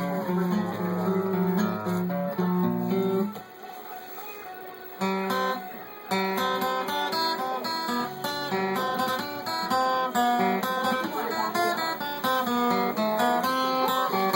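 Acoustic guitar being played, a run of picked and strummed notes that goes briefly softer about four seconds in before picking up again.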